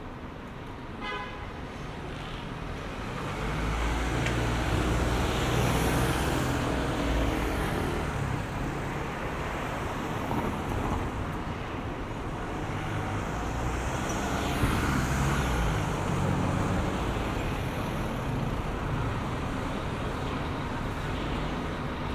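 City street traffic: motor vehicle engines running and passing close by as a low rumble, growing louder about three to four seconds in.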